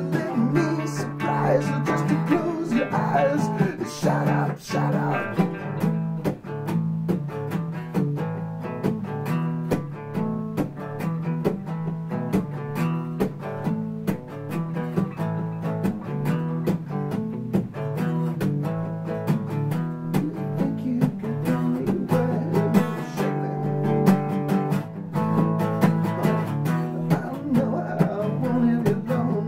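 Acoustic guitar strummed steadily, chord after chord.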